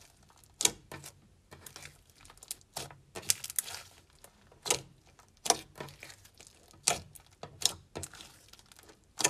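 Slime being squeezed and poked by hand, giving a series of sharp clicks and pops at irregular intervals, with a short run of crackling about three seconds in.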